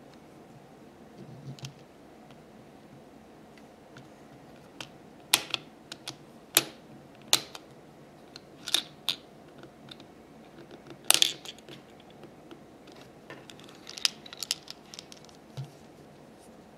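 Small plastic toy candy machine being worked by hand: irregular sharp plastic clicks and light rattles as its knob is turned and the ramune candies inside shift and drop.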